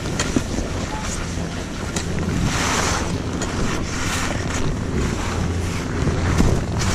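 Wind buffeting the microphone of a camera carried by a skier in motion, over the hiss of skis sliding on packed snow, which swells about three seconds in and again near the end.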